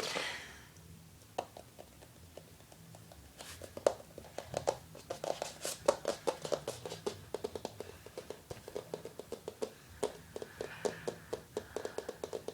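Quick, irregular light taps and scratches, several a second, starting about a second and a half in and growing busier after about three and a half seconds.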